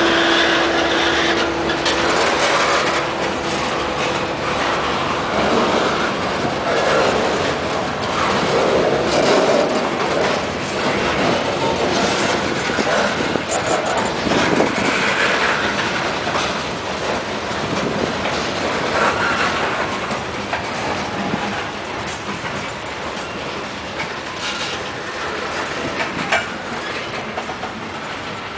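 Freight cars rolling past at close range: the steady rumble and rattle of steel wheels on the rails, with scattered clicks and clanks.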